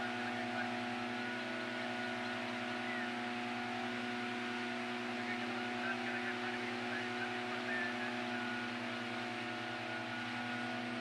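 A small engine running at a constant speed, a steady even drone.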